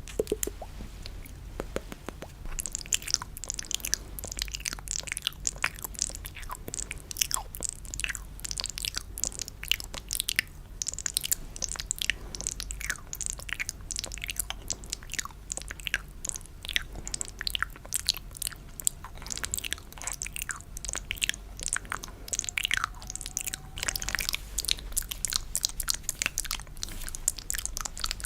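Close-miked ASMR wet mouth sounds ('spit painting'): a dense, irregular stream of sticky clicks and smacks that thickens about two seconds in.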